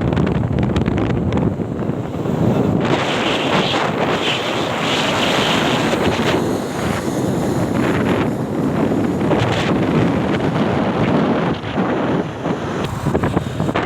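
Wind buffeting the microphone: a loud, continuous rushing noise that swells and dips with the gusts.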